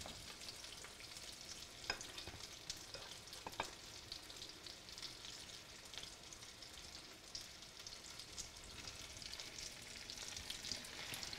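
Egg-battered chicken cutlets frying in olive oil in a skillet: a faint, steady sizzle with fine crackling, broken by a few light clicks.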